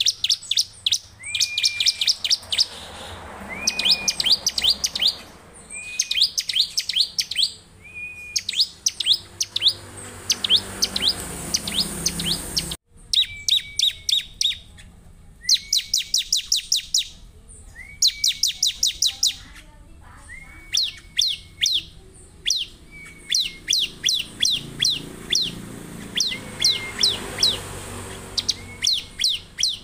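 Bar-winged prinia (ciblek) singing in repeated bursts: each phrase opens with a short level note and runs into a fast string of sharp high chips. A new phrase starts about every two seconds.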